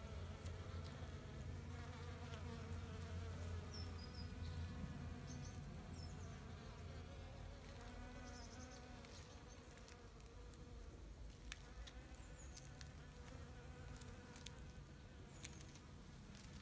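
Flying insects buzzing close by, a faint low hum that is strongest in the first half and fades after about nine seconds. A few faint high chirps and light clicks are heard toward the end.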